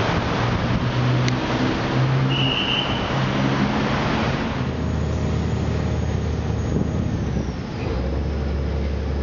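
City road traffic heard from a moving vehicle, a dense rush of engines and tyres with a brief high beep about two and a half seconds in. About four and a half seconds in it gives way to the steady low drone of a river boat's engine.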